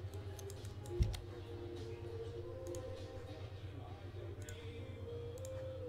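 Computer keyboard typing and clicks over soft background music, with one thump about a second in.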